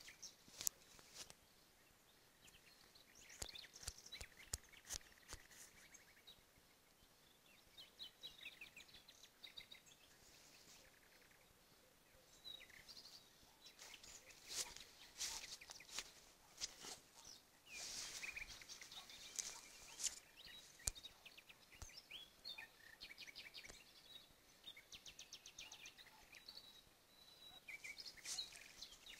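Faint outdoor ambience: scattered high chirps and short rapid trills from small animals, with a few sharp clicks over a soft hiss.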